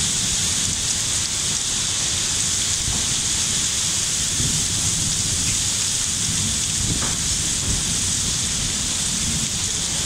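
Heavy, wind-driven rain pouring steadily, with an uneven low rumble underneath.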